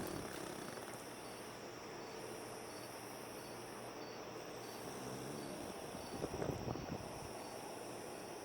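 Beagle snoring in its sleep: the tail of one snore at the very start and another snore about six seconds in, with slow, quiet breathing between.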